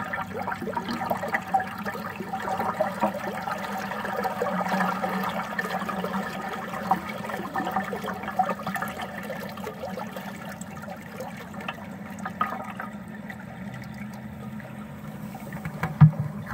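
Creek water rushing and gurgling close around a camera held in the stream, a steady dense splashing with a knock near the end.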